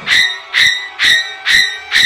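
Electronic beeping: a short high-pitched beep repeating evenly about twice a second, each beep with a faint click.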